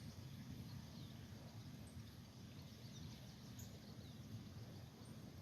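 Faint outdoor ambience: a steady low rumble with scattered faint bird chirps and a faint high tick recurring about every second and a half.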